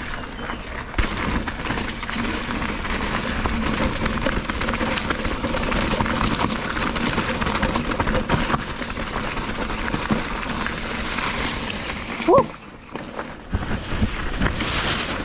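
Mountain bike rolling fast down a wet dirt singletrack: steady tyre and wind rush with many small knocks and rattles from the bike over rough ground. About twelve seconds in there is a short rising squeal, and the noise dips briefly before picking up again.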